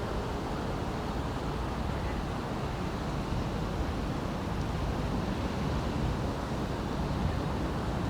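Steady outdoor rumble of wind on the microphone, with no distinct events.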